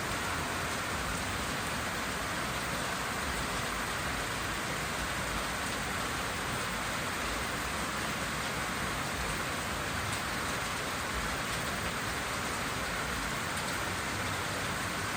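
Steady, even rainfall, a continuous hiss with no single drops or thunder standing out.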